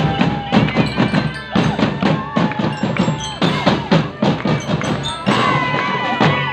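Drum band playing: drums strike a quick, even rhythm while bell-like tones carry a melody over it.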